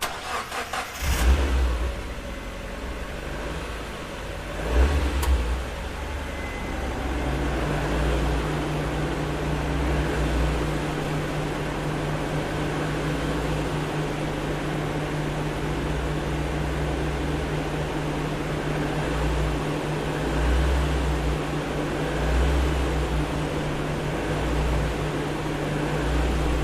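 Car engine starting: a short crank that catches about a second in, a brief rise in revs around five seconds, then a steady idle.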